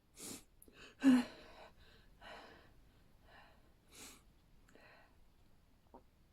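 A person's sneeze buildup that does not turn into a sneeze: a sharp breathy inhale, then a loud voiced gasp about a second in, followed by several quieter, uneven breaths.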